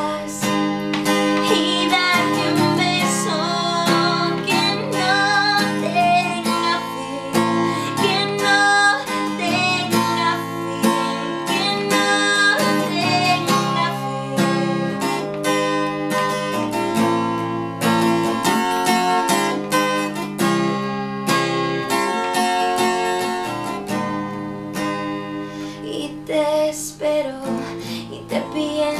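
A woman singing, accompanied by her own strummed acoustic guitar. The strumming runs steadily while the voice holds and bends long notes.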